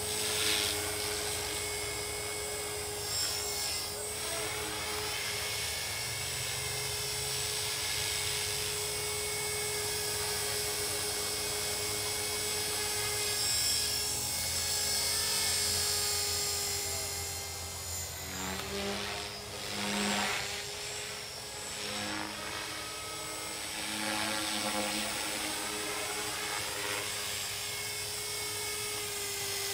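Align T-Rex 450 Pro electric RC helicopter in flight, its brushless motor and gears whining steadily over the rotor blade noise. The whine dips and wavers for a few seconds past the middle, then steadies again.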